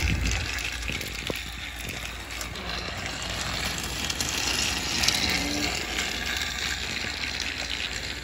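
Battery-powered Thomas TrackMaster toy engine running steadily along plastic track, a continuous motor whir with the wheels rattling on the rails.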